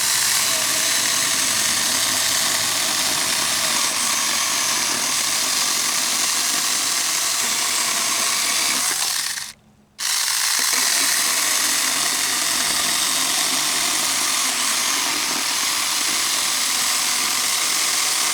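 Saker battery-powered mini chainsaw running and cutting through a 2x4. It makes two cuts, with a short stop of about half a second roughly nine and a half seconds in.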